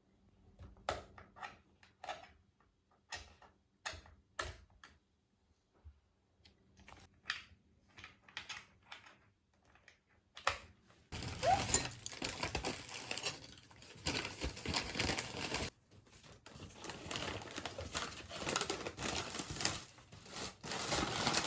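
A run of separate sharp taps and clicks, then about halfway in a steady crinkling and rustling that carries on, as of packaging being handled.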